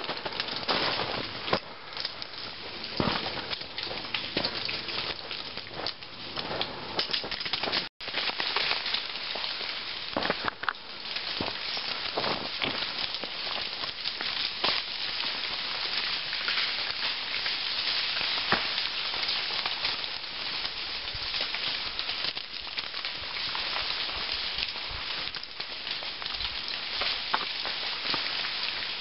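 Thawing ice on ice-coated forest trees crackling and pattering: a dense, steady spray of many small ticks and clicks. It cuts out briefly about eight seconds in.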